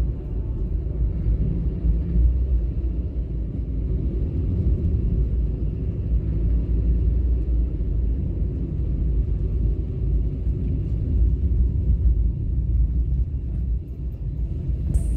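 Steady low rumble of a car on the move: road and engine noise, even throughout, with no distinct events.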